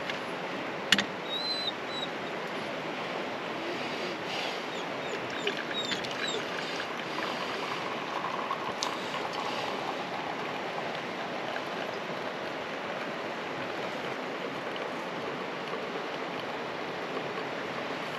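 Steady outdoor rushing noise, with one sharp click about a second in and a few short, high bird chirps in the first six seconds.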